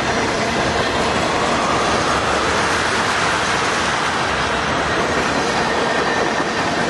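A mixed freight train's tank cars and covered hoppers rolling past on the near track: a loud, steady rumble and rattle of steel wheels on rail, swelling slightly a few seconds in.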